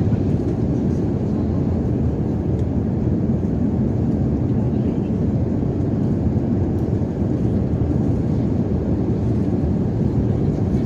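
Steady cabin noise inside a passenger airliner: a constant low rush of engine and airflow noise.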